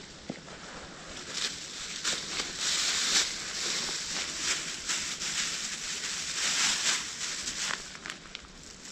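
Dry leaves rustling and crunching in a run of irregular crackly rustles that swell about a second and a half in and ease off near the end.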